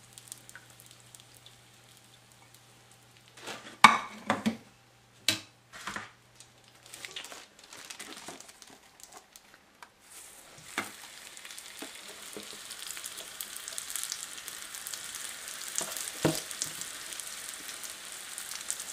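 Lumpia (Filipino spring rolls) going into hot oil in a steel pot: the oil starts sizzling about ten seconds in and grows steadily louder as more rolls go in. A few sharp clinks come before the sizzling and a couple during it.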